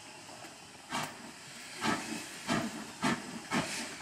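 Saddle-tank steam locomotive moving off slowly, its exhaust chuffing in hissing beats about every half second, starting about a second in.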